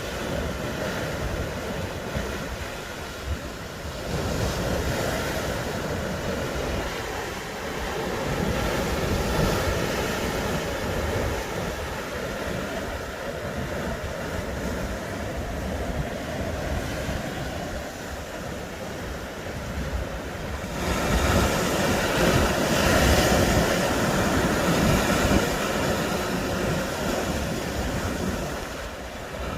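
Sea waves surging and washing in, in rolling swells, the biggest about 21 seconds in, with wind buffeting the microphone.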